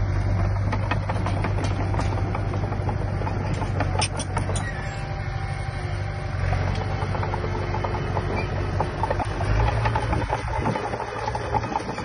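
Diesel engine of heavy earthmoving machinery running steadily, with a few sharp metallic clanks about four seconds in.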